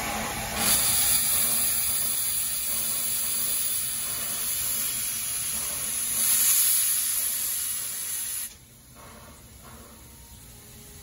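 Steam locomotive venting steam low beside its cylinders: a loud, steady hiss that starts about half a second in and cuts off abruptly about eight and a half seconds in, leaving only a much quieter hiss.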